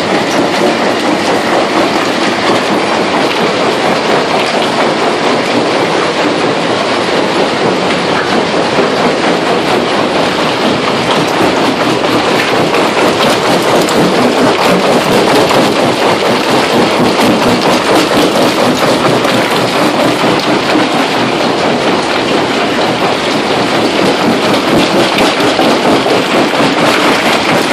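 A Samyoung FSK-4430 jaw crusher crushing granite fed from a vibrating feeder: a loud, steady clatter of breaking and tumbling stone over the running machinery.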